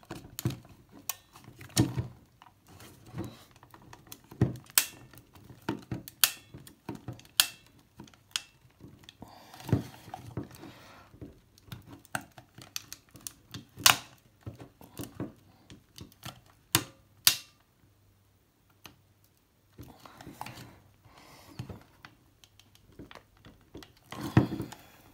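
Screwdriver prying at the hinge of a BottleLox plastic security cap: irregular sharp clicks and taps with short scrapes, and a lull of about two seconds some two-thirds of the way through.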